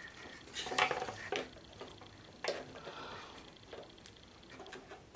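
Pliers clicking and scraping against the carburetor fittings of a push-mower engine as a part is worked loose: a few sharp clicks, the loudest about two and a half seconds in, over faint rustling.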